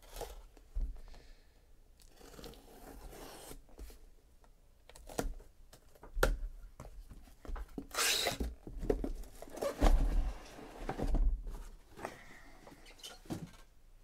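A sealed cardboard shipping case being opened: a utility knife slicing through the packing tape, then the flaps torn open and the boxes of trading cards inside pulled out and set down. There are scrapes and rips of cardboard, a loud rip about eight seconds in and several dull knocks as boxes are put down.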